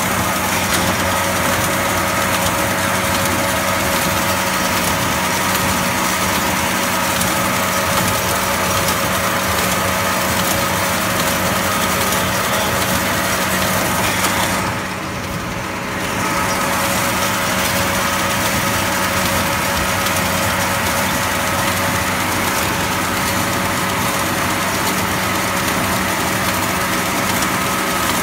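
International Harvester 86 Hydro tractor's diesel engine running steadily while baling hay. The sound goes briefly quieter and duller about halfway through.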